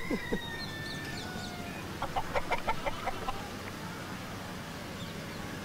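A chicken clucking: a drawn-out, slightly falling note, then a quick run of short clucks about two seconds in.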